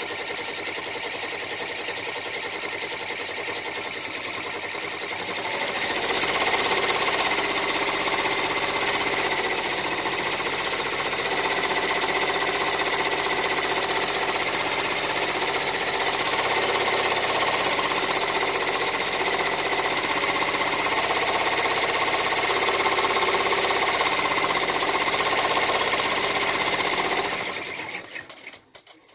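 Baby Lock Enterprise ten-needle embroidery machine stitching at speed: a fast, steady rattle that gets louder about five seconds in. It stops near the end, followed by a few separate clicks.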